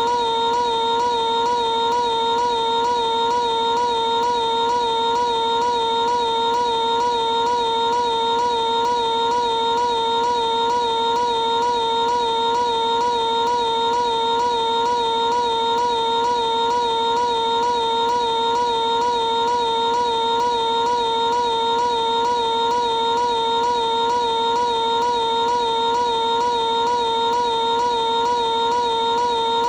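A cartoon piglet character's high-pitched scream, stretched into one endless held note with a slight regular wobble and no break.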